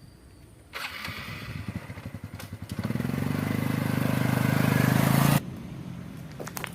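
An engine running, with a hiss over it: about three seconds in the engine's low note comes in strongly and grows steadily louder, then the sound stops abruptly about five and a half seconds in.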